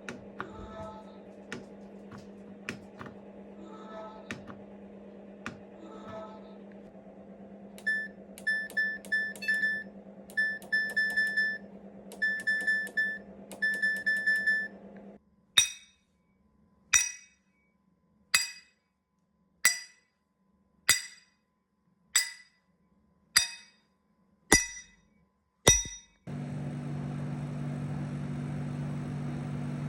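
A run of separate sound effects. First a steady hum with occasional clicks, joined partway by groups of short high beeps. Then about nine sharp, ringing clinks, roughly one every second and a bit. Near the end a steady, engine-like drone starts.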